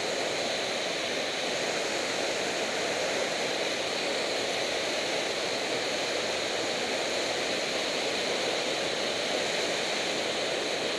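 Mountain torrent cascading over boulders close by: a steady, deafening rush of white water.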